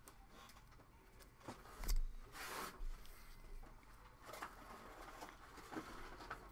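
Trading cards being handled at a table: a soft thump about two seconds in, a short rustling slide just after, then scattered light taps and clicks.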